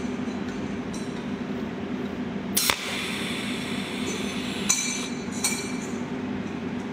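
Cold welding machine firing short welding pulses through a tungsten needle onto a steel coil spring: three sharp zaps, about two and a half seconds in (the loudest), then near four and a half and five and a half seconds, each with a brief high-pitched ring, over a steady low hum.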